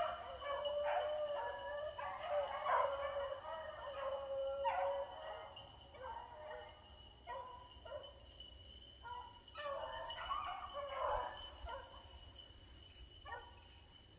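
A pack of beagles baying on a rabbit's trail, several voices overlapping in repeated calls, growing fainter in the last few seconds.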